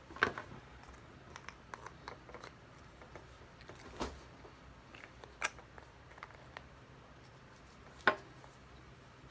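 Scissors cutting into a plastic bath toy: several separate sharp snips and cracks with small clicks between, the loudest a quarter second in and about eight seconds in.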